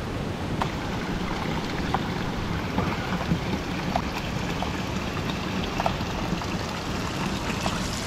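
Thin stream of cold mineral spring water pouring from a rock spout into a water-filled pot bath: a steady splashing with scattered small drips and plinks.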